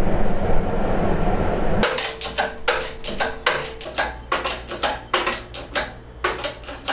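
A steady low rumbling noise, then from about two seconds in a run of sharp metallic clicks and clanks, two or three a second, from a long metal pipe being worked in an orange hydraulic pipe bender.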